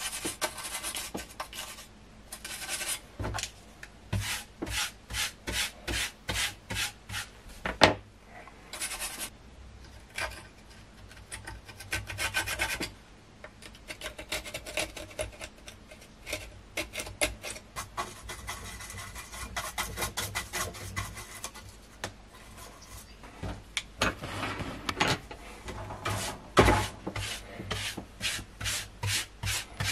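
Small stiff brush scrubbing in short, quick strokes, about two a second at times, brushing dried crust and dirt off a circuit board and across a wooden tabletop. One sharp knock about eight seconds in.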